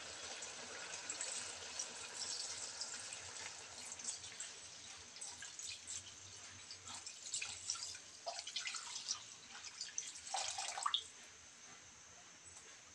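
Water poured from a container into a wok of simmering chicken pieces, splashing onto the meat and broth as it fills the wok for the sinigang soup. The pour stops suddenly near the end.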